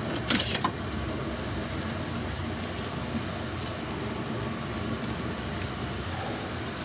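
A steady kitchen hum, with a knock about half a second in and a few light clinks of a ladle working in an aluminium saucepan of fish-bone stock.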